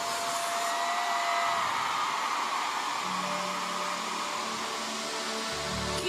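Stage CO2 cryo jets blasting columns of gas with a steady, even hiss. A low held musical note comes in underneath about halfway through.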